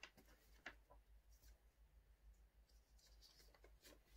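Faint rustling of a small folded paper note being handled and unfolded, with a few soft crackles about half a second in and again near the end.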